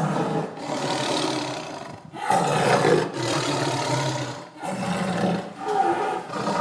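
Tiger roaring several times in a row, with short breaks between the rough, deep calls.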